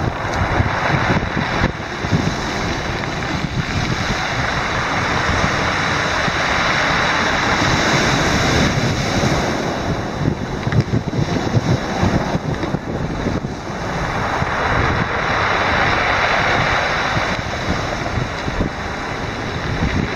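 Ocean surf breaking and washing up a pebble beach, a steady rush that swells and eases as the waves come in. Wind buffets the microphone with a low, uneven rumble.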